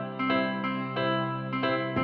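Background instrumental music: a gentle melody of plucked notes changing every few tenths of a second over a held low note.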